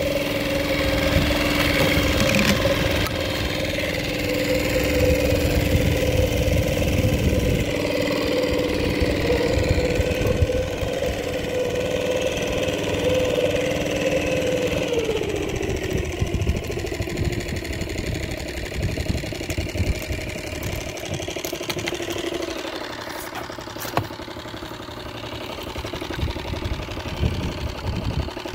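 Small boat motor running steadily with a steady hum, its pitch dropping about halfway through as it slows, over low wind rumble on the microphone.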